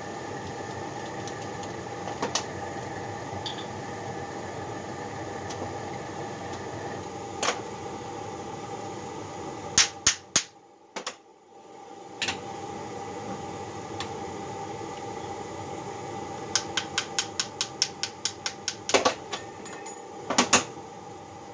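Steady hum of running shop equipment, with sharp metal clicks and knocks from handling a babbitt mold jig and a freshly cast piece. The hum drops out briefly about halfway through. Later comes a quick run of about a dozen light clicks, then two heavier knocks near the end.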